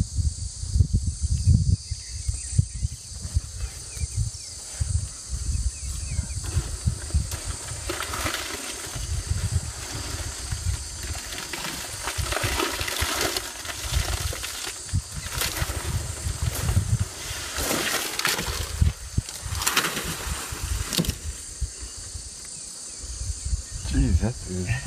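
Branches and leaves rustling and shaking as an elephant pushes against a tree, loudest through the middle stretch, over irregular low rumbles and a steady high insect hum.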